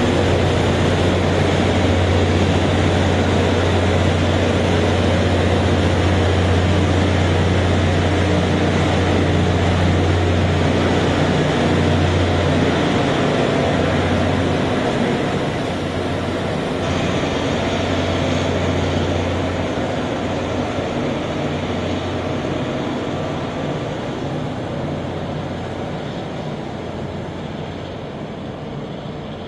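Loram rail grinding train passing, its grinding stones on the rails making a loud, steady rushing grind over the low drone of its diesel engines. The sound eases off gradually from about halfway through.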